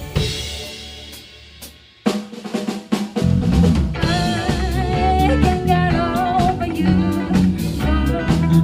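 Pop band music: a ringing chord fades out, a short drum fill with snare and rimshot hits comes in about two seconds in, and then the full band with bass and drums enters under a wavering melody line.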